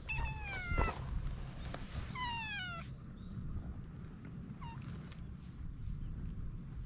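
A cat meowing: two drawn-out meows, each falling in pitch, in the first three seconds, then a short, fainter mew near five seconds in.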